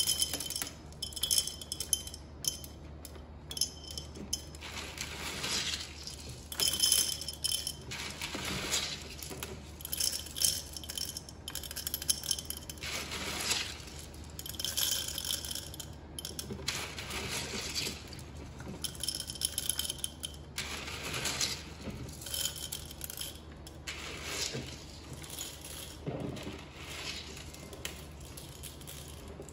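Expanded clay pebbles (LECA) dropped by the handful into a glass jar, clattering and clinking against the glass and against each other in irregular spells.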